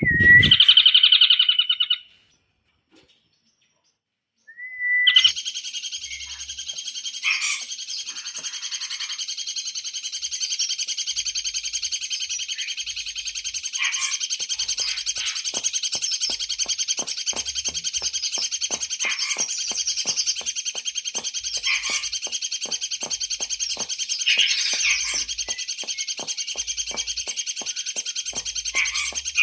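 Recorded songbird song used as masteran training material: a loud burst of song at the start, a short pause, then a long unbroken high, rapid trill with sharper chirps breaking in now and then.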